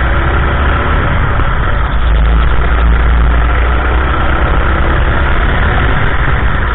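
Go-kart engine running steadily at speed through the corners, heard loud and close from a camera mounted on the kart, with a heavy low rumble underneath.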